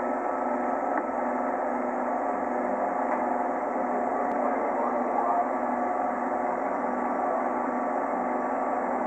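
Steady open-air regatta course ambience: an even background wash with a faint murmur of distant voices.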